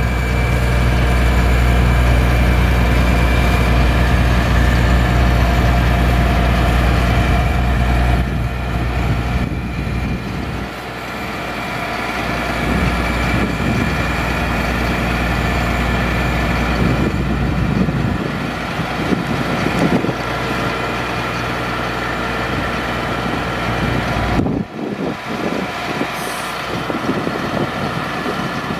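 Diesel engine of a 2001 Ford F750 digger derrick truck running to power the boom hydraulics while the derrick is worked, with steady whining tones over the engine's deep hum. The hum eases about eight seconds in and again a couple of seconds later, and drops out briefly near the end.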